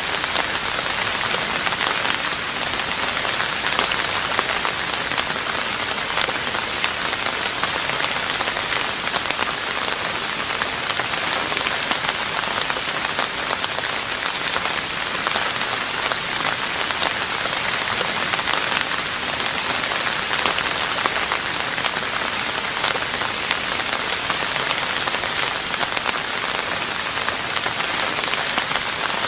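Steady rain falling on a roof: a dense, even hiss of many small drop impacts that holds constant throughout.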